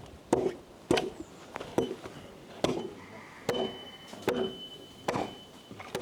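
Ears of corn snapped off the stalks by hand: eight sharp dry cracks at a steady pace of a little more than one a second.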